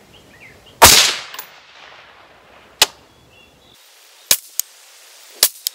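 A single rifle shot from a piston-driven AR-15-style 5.56 rifle, the FMF15, cracking about a second in with a short echoing tail. Several sharp short clicks follow over the next few seconds.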